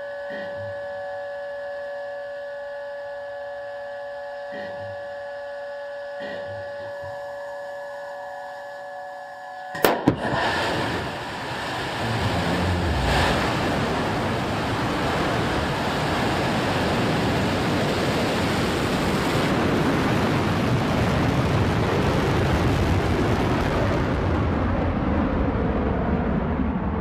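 Steady electrical hum with fixed tones at first. About ten seconds in comes a sharp bang, then the roar of New Shepard's BE-3 liquid-hydrogen/liquid-oxygen rocket engine builds from about twelve seconds in and stays loud and rumbling through ignition and liftoff. The highest hiss thins out near the end.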